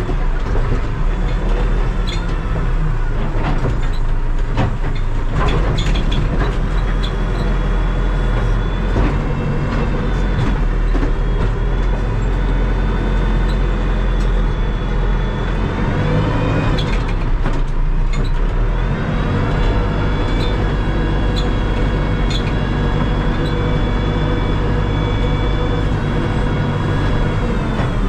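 Terex TLB-815 backhoe loader's diesel engine running hard under load, its pitch sagging and climbing back a little past halfway, with scattered knocks and clanks.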